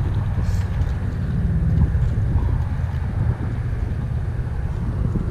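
Wind buffeting the microphone: a loud, steady low rumble that flutters and never lets up.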